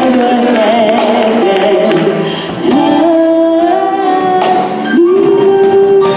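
Gospel singing: a woman lead singer with a choir, sung notes sliding and held, with one long held note starting about five seconds in.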